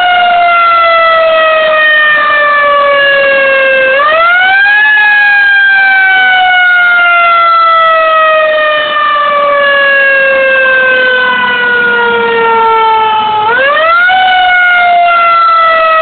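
Fire engine siren wailing loudly. Its pitch sinks slowly over several seconds and then sweeps quickly back up, once about four seconds in and again near the end.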